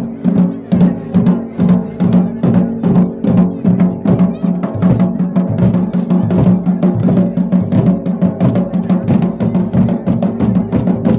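Traditional procession band playing: drums beaten in a fast, steady rhythm of several strokes a second under sustained, droning wind-instrument notes.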